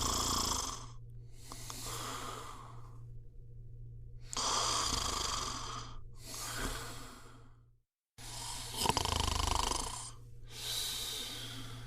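A person snoring: three breath cycles, each a snore followed by a softer breathy out-breath, about every four seconds. The sound cuts out completely for a moment about eight seconds in, a splice in the recording.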